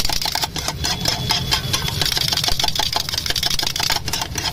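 Steel spatula rapidly chopping and scraping scrambled egg on a flat iron griddle (tawa), a fast, irregular metal-on-metal clatter. Under it runs a steady low hum and a steady hiss.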